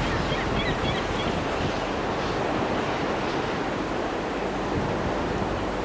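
Sea water washing and rushing as a steady noise, with wind buffeting the microphone.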